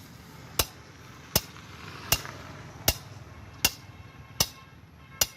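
Steady chopping with a blade: seven sharp strokes at an even pace, about one every three-quarters of a second.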